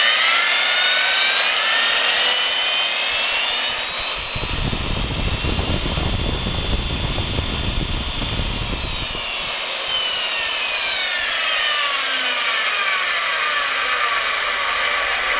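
Milwaukee 4208-1 magnetic drill press motor running in reverse with no load. Its whine rises in pitch as the variable speed is turned up, holds steady, then falls in pitch over the last few seconds as the speed is turned down. A low rumble joins it in the middle for about five seconds.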